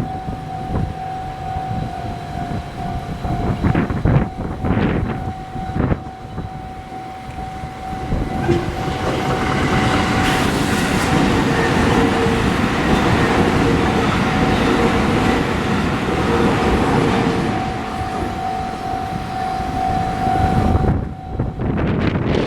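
Japanese railroad crossing alarm sounding a steady tone while a JR Tokaido Line train passes through the crossing, with the train's noise loudest through the middle. The alarm cuts off suddenly near the end.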